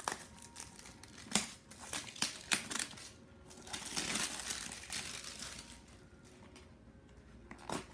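Funko Mystery Mini blind-box packaging being opened by hand: several sharp cardboard clicks and snaps in the first three seconds, then a longer crinkling rustle of the foil bag about four to five seconds in.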